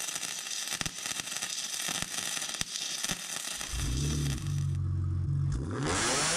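Titanium MIG 140 welder laying a bead on an exhaust pipe: a steady crackle with sharp pops. Near the end the crackle gives way to a low drone and a rushing sound.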